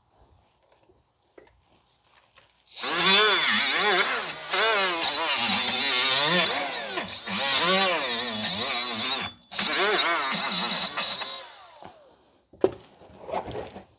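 Power tool with a wire wheel scouring rust off a steering knuckle's hub and caliper-bracket surfaces, with a gritty scraping hiss. Its motor pitch rises and falls over and over as it is pressed on and eased off. It starts about three seconds in, pauses briefly, and stops shortly before a few light knocks near the end.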